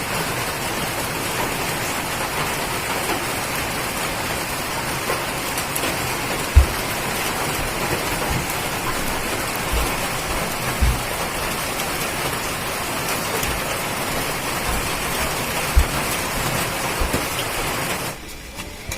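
Momo steamer at a rolling boil: a steady hiss of steam and bubbling water, with a few soft low knocks. It drops away sharply near the end.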